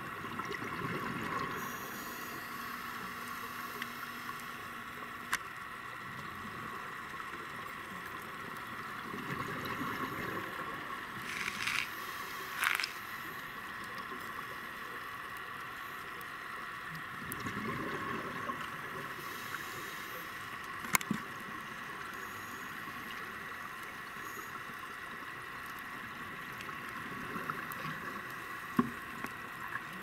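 Underwater sound heard through a camera housing: a scuba diver's regulator breathing, with a burst of exhaled bubbles about every eight seconds over a steady hiss. A few sharp clicks, the loudest about twelve seconds in.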